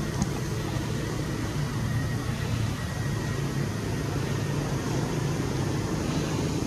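Steady low rumble with an even hiss over it, and a single short click just after the start.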